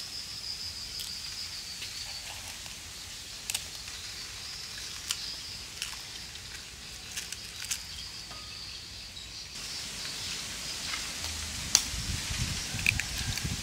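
A spoon tapping and cracking the shells of boiled duck eggs, sharp clicks a second or more apart, over a steady high insect drone. A few low rumbles of handling come near the end.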